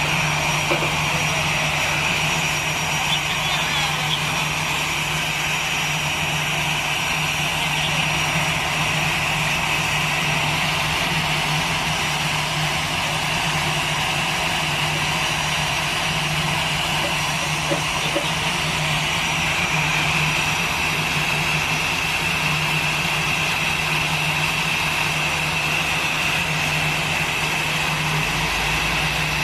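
Jet airliner noise on the apron: a steady high whine over a constant low hum, the whine stepping up slightly in pitch about two-thirds of the way through.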